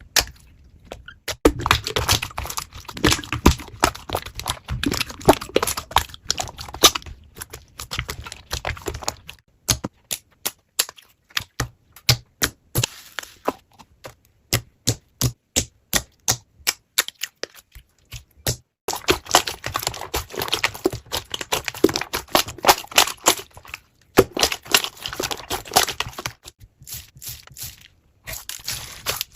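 Slime being squeezed and poked by hand, giving sharp clicks and pops of trapped air. Dense crackling stretches come at the start and again about two-thirds of the way through, with slower, separate pops in between.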